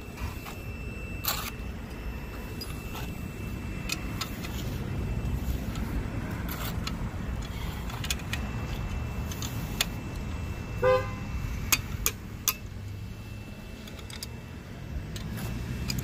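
Steady low outdoor rumble with a faint continuous high-pitched tone from a digital multimeter's continuity buzzer, sounding because the tamper switch contacts are closed (shorted). A few sharp metal clicks come from handling the switch on the valve yoke, and a short horn toot sounds about eleven seconds in.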